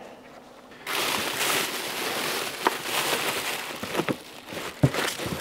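Bubble wrap and plastic packaging rustling and crinkling as hands rummage through a cardboard box, starting about a second in, with a few light knocks and clicks.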